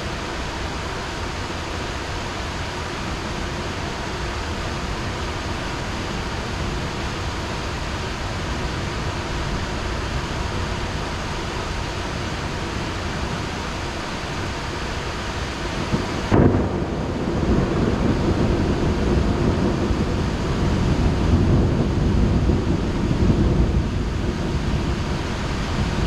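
Heavy rain falling steadily. About sixteen seconds in, a sharp crack of thunder, followed by a long, low rumble that is louder than the rain.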